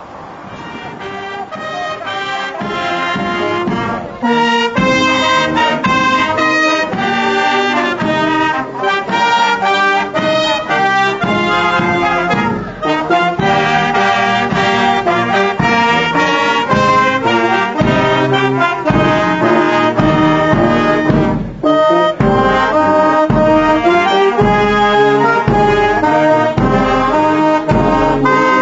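An outdoor wind band of saxophones, clarinets and brass horns playing a tune together. The music fades in over the first few seconds, then plays loudly and steadily, with two very short breaks about 12 and 21 seconds in.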